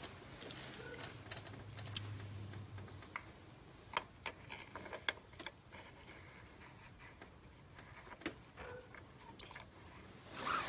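Scattered light metallic clicks and taps as a spark plug socket on an extension is worked by hand inside a spark plug tube, with glove rustling; a few sharp clicks a second or more apart.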